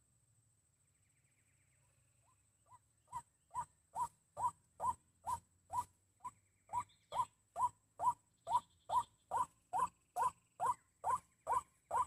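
A white-breasted waterhen's call played back as a lure, the same short call repeated about twice a second. It starts softly a couple of seconds in, grows louder over about a second, then holds steady.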